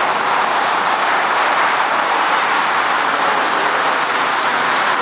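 Boeing 787-8 airliner's jet engines heard from below as it flies low overhead on approach with landing gear down: a loud, steady rushing roar that holds at one level.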